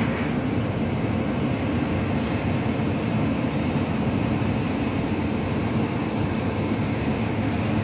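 Fire engine's engine running steadily, a continuous rumble with a low steady hum.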